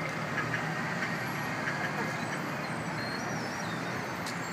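Street traffic: vehicles driving through an intersection, a steady wash of engine and tyre noise.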